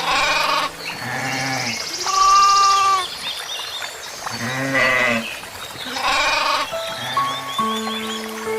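Bleating livestock: about five short bleats, roughly a second apart, over background music.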